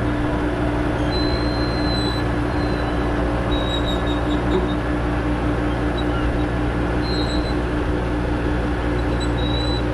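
Engine of a fork-equipped lifting machine running steadily under load, with a constant low hum. It is carrying a pulled big-block engine slung by a chain from its forks.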